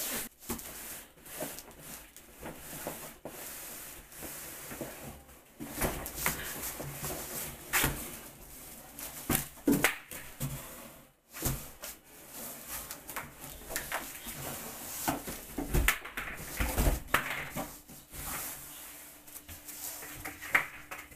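Large cardboard boxes being handled: flaps pulled open and dragged, with scraping and rustling of cardboard broken by irregular knocks and sharp clicks.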